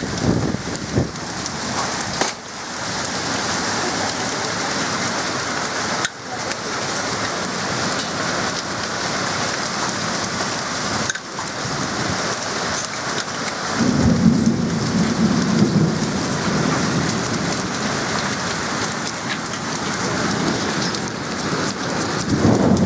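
Heavy rain and hail coming down hard in a thunderstorm, a dense steady hiss of stones and water hitting the ground and surfaces. Thunder rumbles low for a few seconds from about 14 seconds in.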